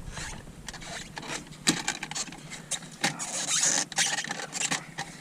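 Plastic interior trim of a BMW E92's left cup holder clicking, knocking and scraping as it is tugged at by hand. It will not come out: the cup holder is stuck.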